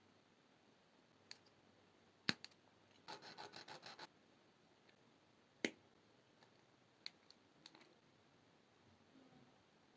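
Small sharp clicks and taps from wire, beads and gems being handled, with a quick run of about eight ticks a second lasting about a second; otherwise near silence.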